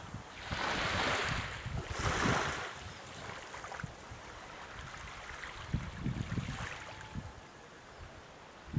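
Small waves of a calm sea lapping and washing under a wooden pier, with two louder washes in the first three seconds. Wind rumbles on the microphone.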